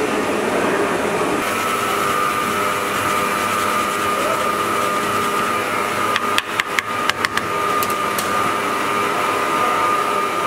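A steady background hum with a thin whine; about six seconds in, a quick run of about eight sharp taps on a wooden cutting board heaped with grated beetroot.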